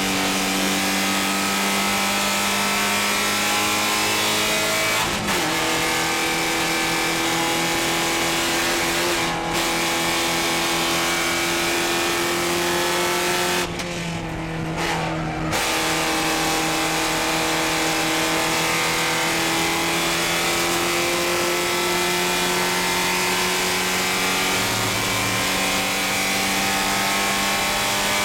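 Porsche 944 Spec race car's four-cylinder engine heard from inside the cockpit, running hard at racing speed with wind and road noise. The engine note glides slowly up and down and breaks off briefly about 5 s, 9 s and 14 to 15 s in.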